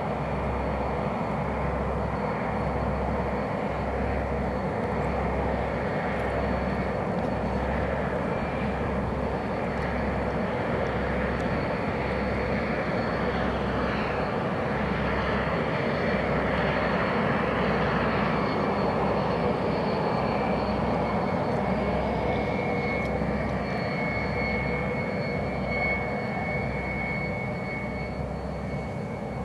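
Steady running noise of a TaxiBot towing tractor pulling an Airbus A320-family airliner, under a low, unevenly pulsing rumble. A thin high whine, typical of the airliner's auxiliary power unit, grows stronger from about 22 seconds in as the tail turns toward the listener.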